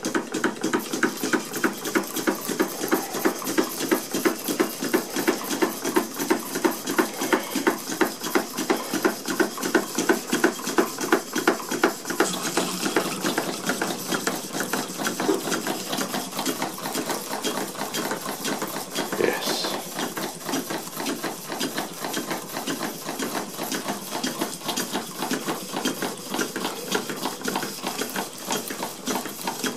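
Several small Stuart model steam engines running together off one boiler: a fast, even clatter of exhaust beats and working valve gear and cranks.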